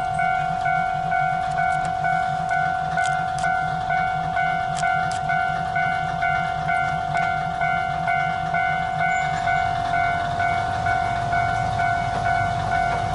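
Railway level-crossing warning bell ringing in a fast, even repeating rhythm, over the idling diesel engine of a KiHa 22-type railcar. About ten seconds in the engine grows louder as the railcar starts to pull away.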